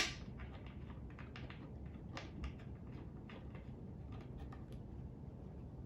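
A sharp knock, then a run of small, irregular clicks and taps as an office chair armrest and its screws are handled and lined up against the seat.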